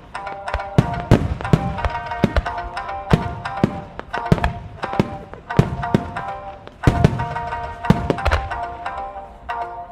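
Music over loudspeakers accompanying a fireworks display, with frequent sharp bangs and low booms of firework shells bursting, several close together around seven seconds in.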